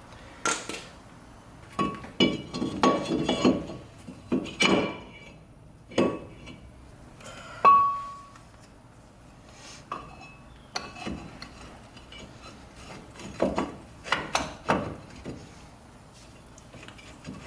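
Metal tools and truck hub and brake parts clinking and knocking in irregular strikes during reassembly, with one sharper ringing clink about eight seconds in.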